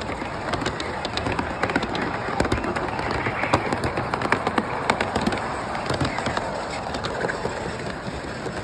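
Model freight train rolling past close by: a rapid, irregular clicking and clatter of the cars' wheels on the track over steady background noise.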